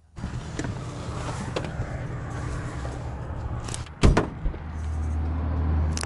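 Light aircraft being handled on the ramp: a steady low rumble with a hum, and one loud thump about four seconds in, as a hand meets the Cessna 182's aluminium fuselage skin.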